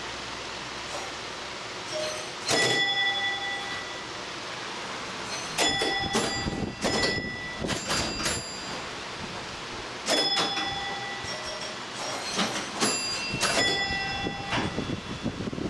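Electro-mechanical bingo pinball machines clattering: relays and stepper units clicking, with a bell struck again and again, ringing out after each strike. The strikes come in bunches, about two and a half seconds in, between six and eight seconds, at ten seconds and between twelve and fourteen seconds.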